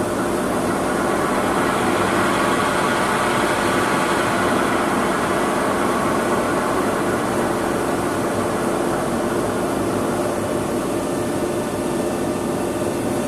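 3B12 cylindrical grinding machine running under power after its speeds are switched on: a steady machine hum with a few even tones and no knocks or changes.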